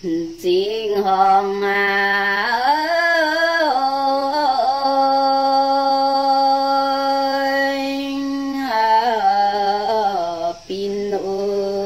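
A woman singing a Red Dao (Dao đỏ) folk song alone, unaccompanied. She holds long notes and slides slowly between them, with one long held note in the middle and a short break for breath about ten and a half seconds in.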